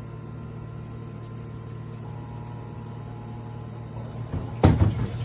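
Washing machine running with a steady low hum. Near the end, loud percussion strikes start up in time with it.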